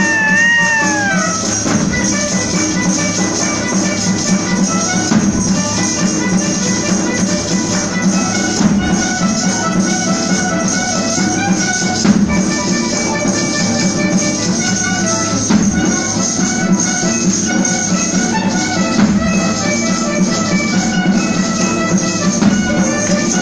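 Youth ensemble of many nylon-string classical guitars and flutes playing a lively Brazilian-style piece, with shaker or tambourine keeping a steady beat. A high sliding whistle-like tone trails off in the first second and a half.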